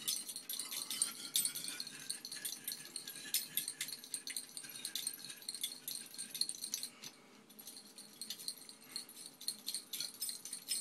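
A burning, glowing piece of survival-kit flint rattling and crackling as it is shaken inside a lidded glass jar. The sound is a dense run of sharp clicks, uneven in loudness.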